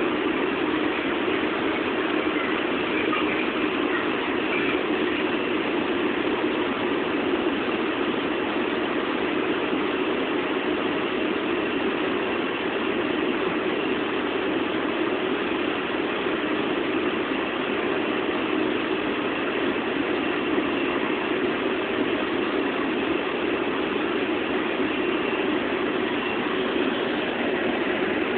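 Steady machine noise from a running motor or fan, even and unchanging, with most of its weight in a low hum.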